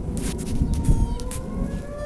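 Outdoor tornado warning siren wailing, its pitch easing down and then rising from about a second in, over a heavy low rumble. Several sharp crackles come in the first second and a half.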